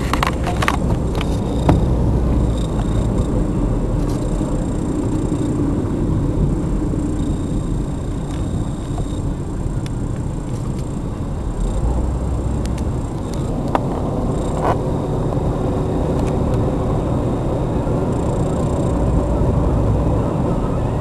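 Steady road and engine rumble heard from inside a moving car's cabin, with a couple of brief knocks about two-thirds of the way through.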